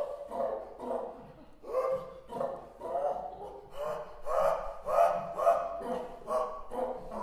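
Two voices, a man's and a woman's, in wordless free improvisation: a rapid string of short pitched vocal cries, roughly two a second, many swooping up and down in pitch.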